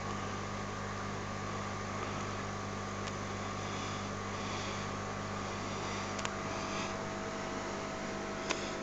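Steady low electrical hum of running aquarium equipment, with a few faint clicks near the end.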